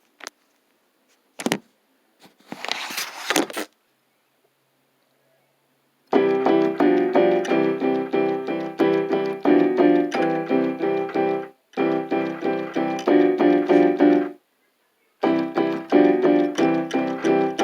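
Electronic keyboard playing fast runs of notes in three stretches, broken by short gaps, after a few short clicks and a brief burst of noise at the start.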